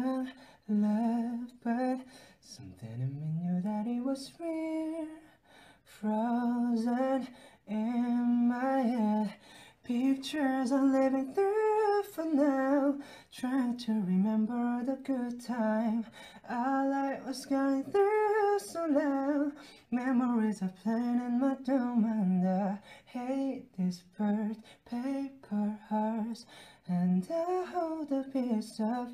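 A young man singing a slow melody alone with no accompaniment, holding notes and sliding between them, with a long upward slide about three seconds in.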